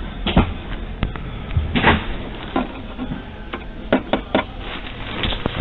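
Irregular clicks and knocks, about a dozen of them unevenly spaced, over a steady low hum.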